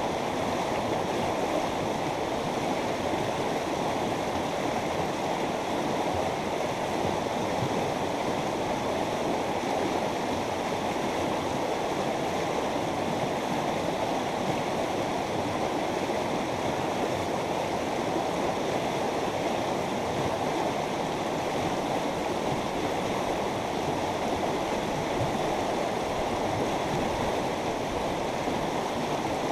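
Mountain river running over rocks: a steady, even rush of flowing water.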